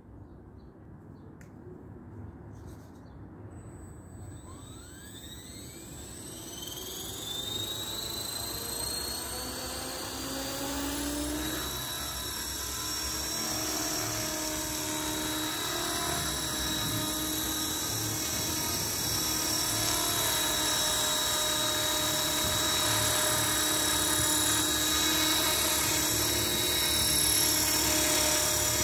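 Align T-Rex 450 V2 electric RC helicopter spooling up. The motor's whine rises in pitch from about four seconds in, then settles into a steady high whine, growing louder as the helicopter lifts off and hovers.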